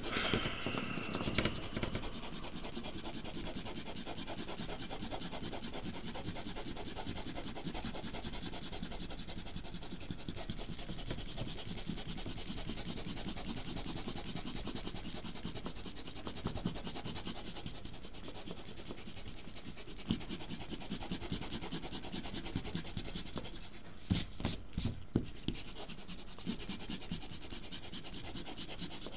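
Pen-style stick eraser rubbed rapidly back and forth on paper, erasing pencil lines. A few louder scuffs come near the end.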